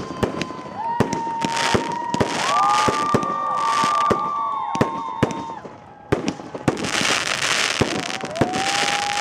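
Fireworks going off: rapid sharp bangs and crackles with bursts of hiss, with long high squeals rising and falling over them.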